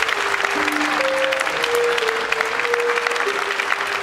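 Audience applause, many hands clapping, over the end of the dance music: a slow melody of long held notes.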